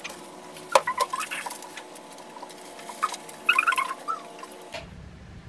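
Short, high squeaks and a few light clicks from plastic-gloved hands rubbing on plastic bottles and packets while a hair-dye kit is handled. Near the end a steady low hum comes in.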